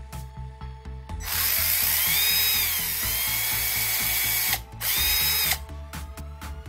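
Aimsak AD414R cordless drill, with its housing opened up, run by its trigger. The motor and gears run for about three seconds, the whine climbing and then settling lower. It stops briefly, then runs again for under a second.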